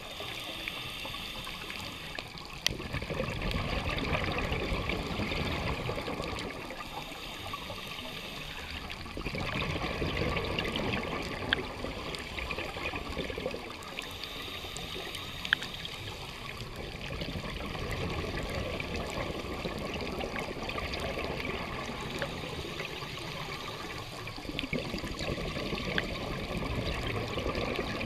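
Underwater sound of a scuba diver breathing through a regulator: a hiss on each inhale alternating with a bubbling rush of exhaled air, repeating every five or six seconds. A few sharp clicks stand out.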